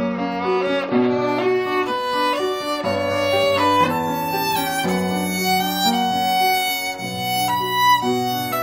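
A child playing a violin: a bowed melody of notes changing about once or twice a second, over lower sustained notes underneath that shift every second or two.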